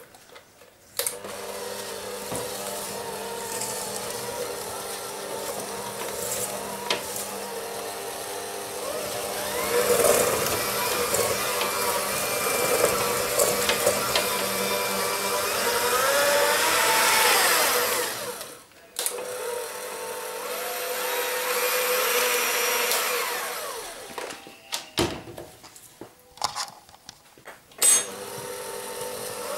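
Electric hand mixer running, its beaters whisking butter, icing sugar and cream cheese into butter icing in a stainless steel bowl. The motor starts about a second in, its pitch wavers in the middle stretch, and it stops briefly a little past halfway and again near the end with a few clicks before starting up again.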